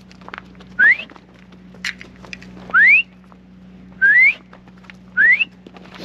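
A person whistling to call cattle: four short whistles, each sliding upward in pitch, one to two seconds apart.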